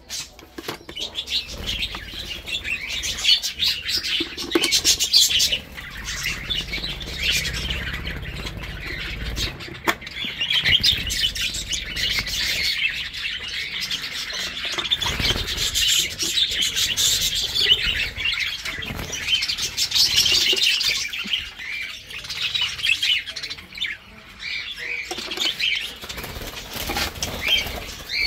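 A flock of show-type budgerigars chirping and chattering together without pause, with a few knocks from wooden nest boxes being handled.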